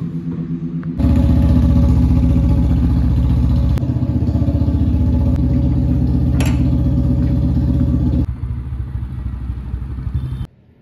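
A motorcycle engine running at a steady, even beat. It gets much louder about a second in and drops back a few seconds before the end, with a sharp metallic clink partway through. The sound cuts off suddenly near the end.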